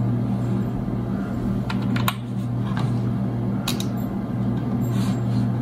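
Computer keyboard being typed on in a few scattered key clicks, as results are saved, over a steady low hum.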